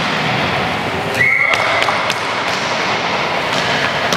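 Inline hockey sticks and puck knocking and clattering on a wooden floor during a scramble in front of the goal, with a referee's whistle blowing briefly about a second in to stop play.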